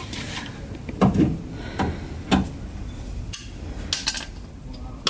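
Several separate metallic clinks and knocks from hand tools and a gas strut against the metal mounting bracket of a bus bay door as the strut is fitted.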